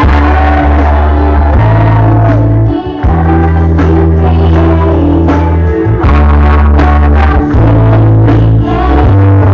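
Loud rock-style song with a singing voice and a heavy bass line, played over stage loudspeakers for a dance routine, with a brief break about three seconds in.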